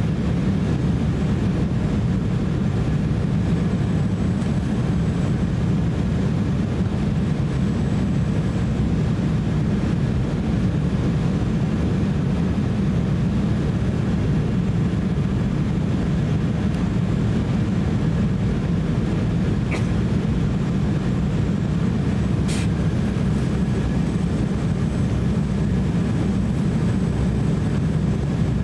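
Cabin noise inside an Embraer E170 jet airliner on final approach with its landing gear down: a steady low rumble of airflow and engines. A faint click or two about three-quarters of the way through.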